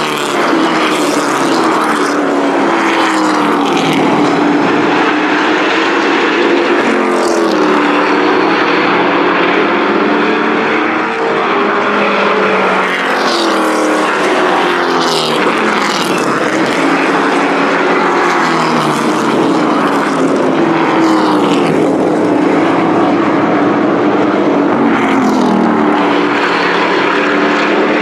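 Race pickup trucks' engines running hard around a paved oval. Their pitch rises and falls over and over as the trucks accelerate and back off, and several trucks pass close by.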